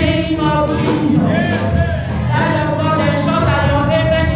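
Worship music: a voice singing a melody over instrumental accompaniment.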